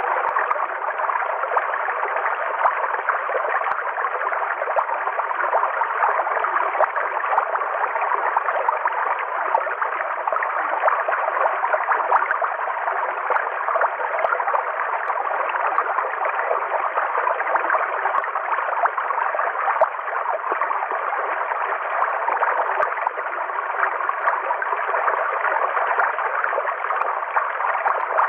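Forest river water flowing, a steady, unbroken rush of running water.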